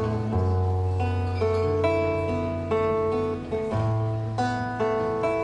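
Solo nylon-string classical guitar playing an instrumental passage: plucked chords struck about once a second over ringing bass notes, each chord decaying before the next.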